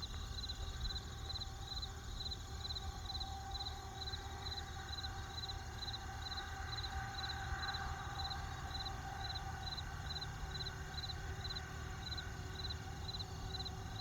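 Crickets chirping in an even rhythm, about two chirps a second, over a steady low rumble.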